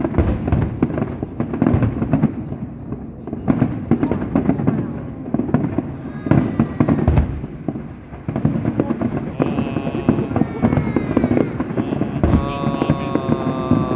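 Aerial fireworks show: shell bursts going off in rapid, irregular volleys, with crackling between the bangs.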